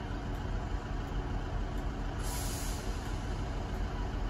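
Diesel engine of a Class 158 diesel multiple unit idling steadily at the platform, with a short hiss of air from its air brakes about two seconds in.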